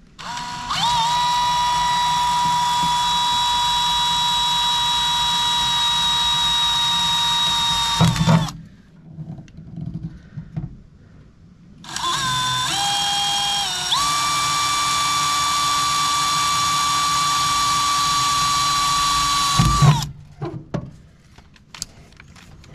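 DeWalt 20V XR cordless drill running in two long, steady spells, boring into the truck bed's sheet metal through the outlet's mounting holes. The second spell starts with the speed stepping up and down before it holds, and each spell ends with a short clunk.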